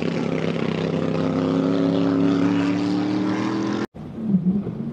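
Racing powerboat engine running flat out, a loud steady high-pitched drone whose pitch creeps up gradually. It cuts off abruptly near the end and gives way to a quieter, uneven engine rumble from an offshore powerboat in rough water.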